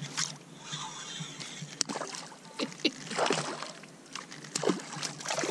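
Water sloshing and splashing close by in short, irregular bursts, with one sharp click about two seconds in.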